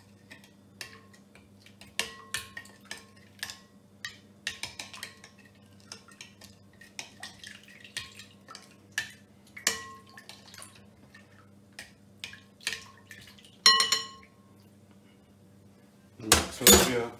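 Metal fork stirring spices into buttermilk in a glass bowl, clinking irregularly against the glass. There is a sharper ringing clink near the end, then a louder, longer clatter.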